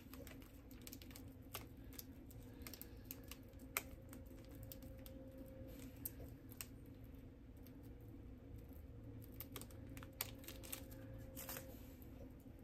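Faint, irregular light clicks and taps of a small item being handled and turned over, with a few sharper clicks, over a low steady hum.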